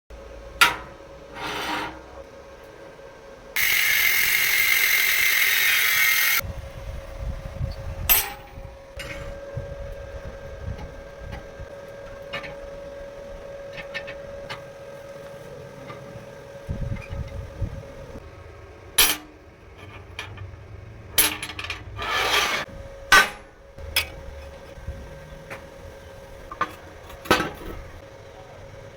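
Metalworking in a workshop: metal parts knocked and clinking as they are handled, with a loud burst of hand-tool or power-tool work lasting about three seconds near the start, over a faint steady hum.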